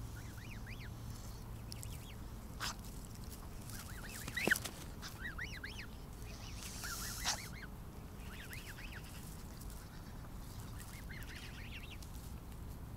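Canada geese and their half-grown goslings grazing close by, giving many short, soft peeping calls. One louder call comes about four and a half seconds in, and a short noisy burst follows around seven seconds.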